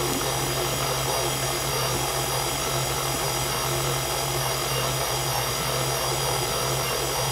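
KitchenAid stand mixer running with its dough hook turning through flour: a steady electric motor hum and whine.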